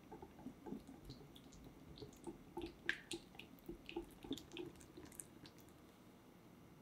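Egg yolks being beaten with a silicone balloon whisk in a glass bowl: quiet, quick wet clicks and slaps, about three or four a second, stopping near the end.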